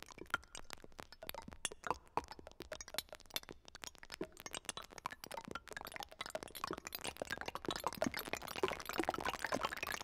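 Electronic sonification of NMR spectroscopy waveforms: a random scatter of short clinks and pings, standing for molecules tossed around in solution. The clicks grow denser and louder through the second half as the solution is warmed.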